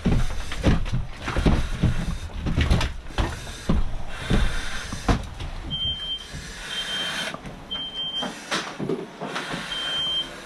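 Repeated knocks, scrapes and crashes as ceiling material is pulled down with tools after a kitchen fire. About halfway through, a smoke alarm starts sounding high beeps in groups of three.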